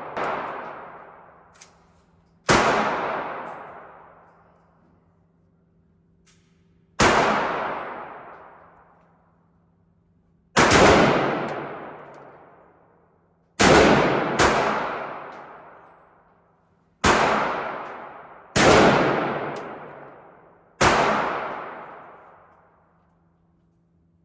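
Eight single gunshots fired at a slow, uneven pace, one to four seconds apart, with two coming close together about fourteen seconds in. Each shot is followed by a long echo that fades over a few seconds, as in an enclosed range.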